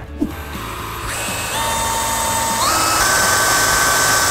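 Cordless drill spinning a wooden dowel as a bit in garnet abrasive, with a gritty grinding hiss. The motor whine rises in steps about halfway through as the drill speeds up, then runs steady.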